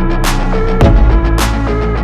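Electronic background music with a heavy sustained bass and a steady beat.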